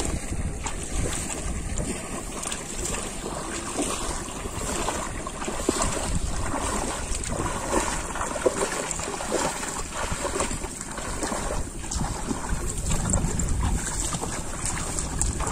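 Shallow muddy water splashing and sloshing, irregular and continuous, as hands grope and legs wade through a flooded rice paddy, with wind buffeting the microphone.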